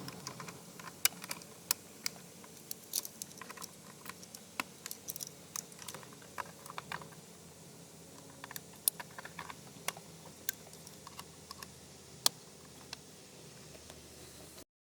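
Scattered light clicks and taps, irregular and a dozen or more in all, over a faint steady background hum.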